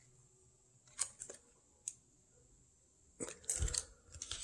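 Faint handling noises of coins in plastic sleeves and cardboard holders: a few scattered light clicks, then from about three seconds in a short run of plastic rustling and small taps as they are set down and picked up on the table.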